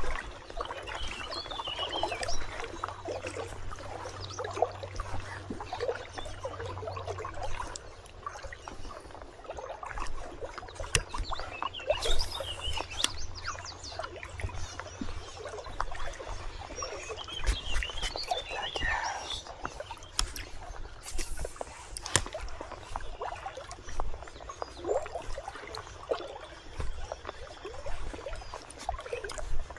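River water trickling and splashing in a shallow wading stretch, with small birds calling now and then, twice more clearly.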